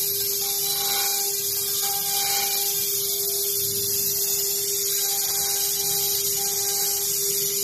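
CNC router spindle running with a steady high whine and a cutting hiss as its end mill mills a pocket into a white block. A second, higher tone comes and goes several times.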